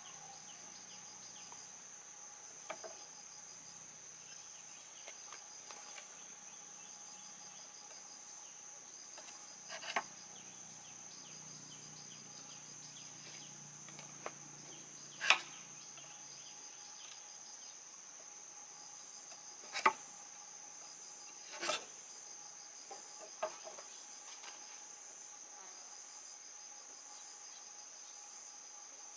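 Steady high-pitched insect trilling, with a handful of sharp knocks scattered through; the loudest come about fifteen and twenty seconds in.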